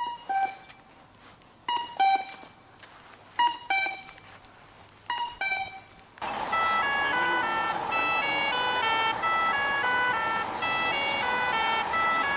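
Accessible pedestrian signal's electronic cuckoo walk tone: a short two-note cu-ckoo call repeating about every 1.7 seconds, four times. About six seconds in it gives way to a continuous electronic tune of quick, short stepping notes.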